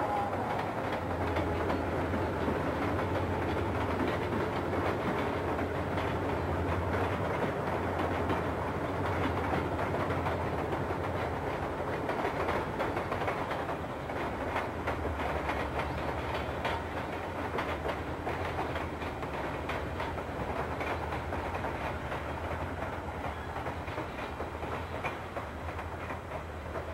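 Freight cars rolling over a wooden trestle: a steady rumble with wheel clicks at the rail joints, easing slightly in level over the second half.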